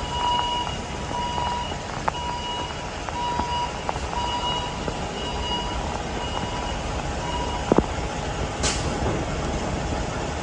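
An automated container-handling machine sounds a steady warning beep, repeated roughly every three-quarters of a second, that fades out about seven seconds in. It sits over the constant hiss of heavy rain, with drops ticking on nearby surfaces and a sharper knock near the end.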